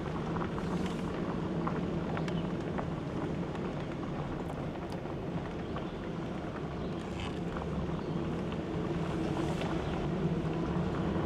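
Truck rolling slowly along a gravel road, heard from inside the cab: a steady low engine and road drone, with a few faint clicks from the gravel under the tyres.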